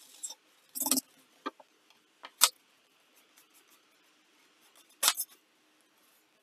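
A handful of short, sharp knocks and scrapes as a small wooden board and gloved hands bump against a wooden tabletop while wet paper pulp is rubbed off the board. The loudest knock comes about two and a half seconds in, and a quick double knock about five seconds in.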